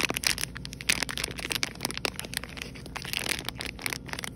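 Soft plastic wrapper of a pack of collagen cleansing cloths being squeezed and crinkled by fingers, giving a dense run of irregular crackles.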